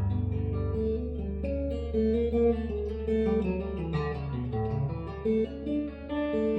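Guitar music: plucked notes following one another in a melodic line, with no voice.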